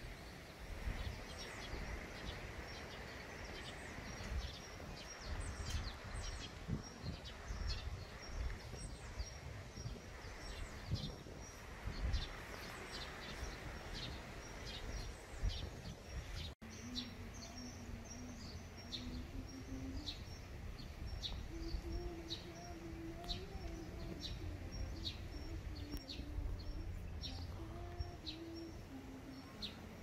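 Small birds chirping repeatedly in short high calls over a steady low background rumble. After a brief cut about halfway in, a faint low wavering tone runs underneath the birdsong.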